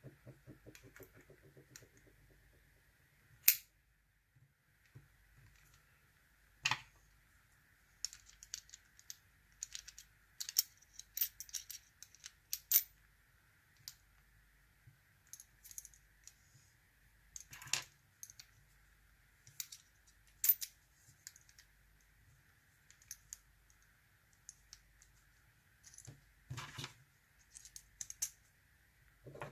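Irregular small metallic clicks and taps from handling a padlock and its parts during reassembly, one sharper click about three and a half seconds in and clusters of lighter ticks later on.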